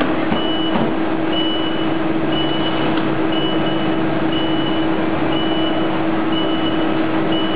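Running servo coil inserting machine on a factory floor: a steady hum and constant machinery noise, with a short high beep repeating about once a second.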